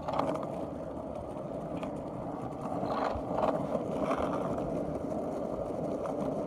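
Skateboard wheels rolling, a steady rumble with a few light knocks about halfway through.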